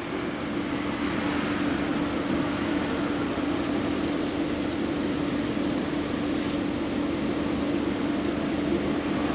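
A steady mechanical hum: one constant low tone under an even hiss, with no change in pitch or level.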